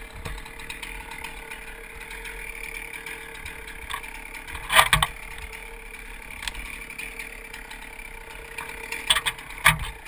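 Chainsaw idling steadily with a light mechanical rattle, broken by a sharp knock about halfway through and two more near the end.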